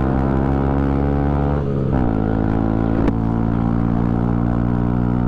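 Honda Grom's single-cylinder engine running under way, with a gear change about two seconds in where the engine note drops and then holds steady again.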